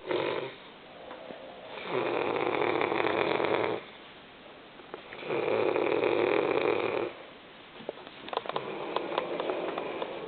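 Snoring: a short rasping snore at the start, then two long snores of about two seconds each a few seconds apart, and a softer, crackly one near the end.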